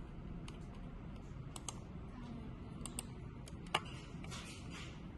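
Scattered clicks on a laptop's keys and buttons as it is operated, the sharpest about three-quarters of the way through, over a low steady background hum.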